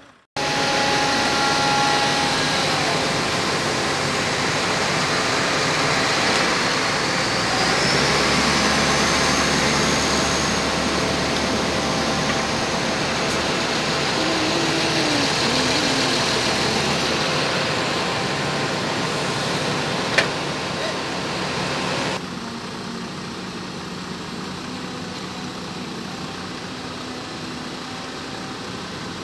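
Heavy diesel machinery engines running steadily, with a high whine that rises and then holds for a few seconds, and a single sharp click about two-thirds of the way through. The sound then cuts to a quieter, steady engine hum.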